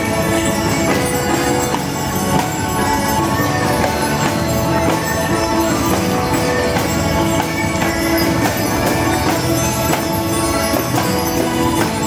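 Parade soundtrack music playing, with a steady beat under sustained melody notes.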